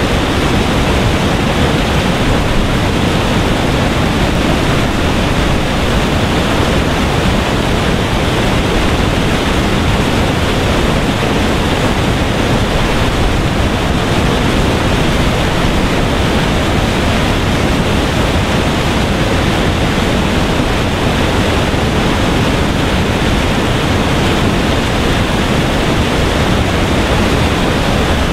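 Water pouring over a mill-dam weir in a wide sheet and crashing into white water below: a loud, steady rush with no breaks.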